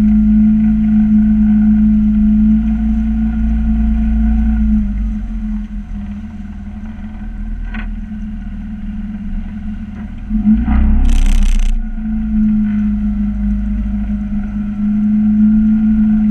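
Outboard motor of a coaching launch running steadily, its engine note easing off about five seconds in and picking up again near twelve seconds. A brief loud rush of noise breaks in about eleven seconds in.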